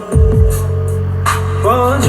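Recorded music with a heavy bass line and a sung melody played loud through a line array PA system during a sound check.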